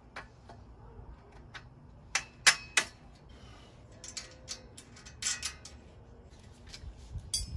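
Metal clicks and taps of a bolt, washer and nut being fitted by hand into a steel welding-table leg bracket, with three sharper clicks about two seconds in and lighter ones after.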